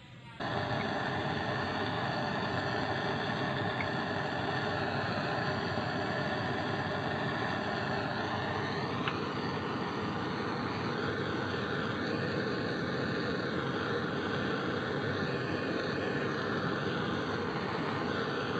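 Handheld butane canister torch burning with a steady roaring hiss, starting abruptly about half a second in.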